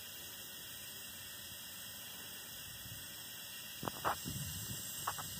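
Steady hiss of compressed air blowing up the stack of a miniature live-steam locomotive to draw its fire during steam-up. A few short metallic clicks or knocks about four and five seconds in.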